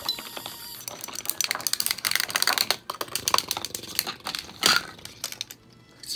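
Rapid, irregular clicking and clattering of small plastic objects handled and knocked together on a tabletop, with one louder clack about four and a half seconds in.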